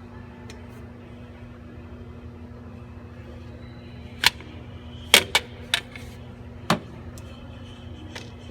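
Sharp metallic clinks of hand tools on metal, about six of them in the second half, over a steady low hum.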